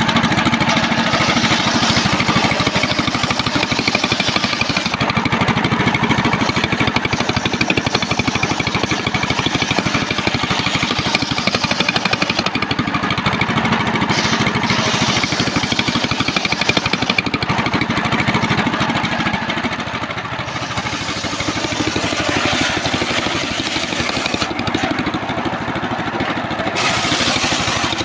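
Homemade table-mounted circular saw ripping a plank of old trembesi (rain tree) wood, its drive engine running steadily under the rasp of the blade in the timber. The bright cutting hiss eases off briefly a few times as the board is fed.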